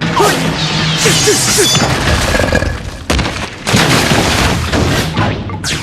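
Cartoon sound effects of a scuffle: a rapid run of crashes, booms and hits, with a few short pitched cries or squeaks in the first two seconds and a hard impact about three seconds in.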